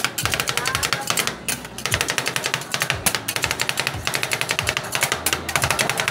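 Two metal spatulas rapidly chopping and scraping ice cream mix on a steel rolled-ice-cream cold plate: a fast clatter of metal taps on the plate, with a brief let-up about a second and a half in.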